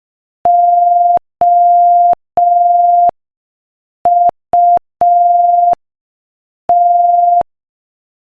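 Morse code sent at 5 words per minute as a single steady beep of about 700 Hz: three long tones, then two short and one long, then one long, spelling out the word "OUT".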